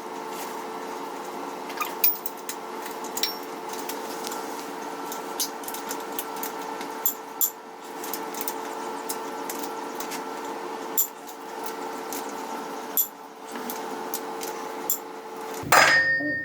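Scattered sharp clicks and taps of hand tools on metal over a steady hum, which stops suddenly near the end.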